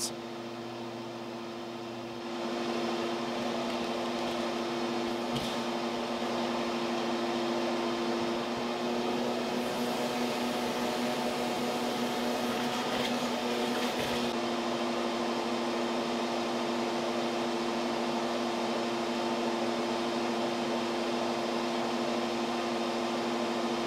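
Wasp-removal vacuum running with a steady hum and rush of suction, sucking German yellowjackets off the exposed nest comb; the suction gets louder about two seconds in and stays even, with a few faint ticks.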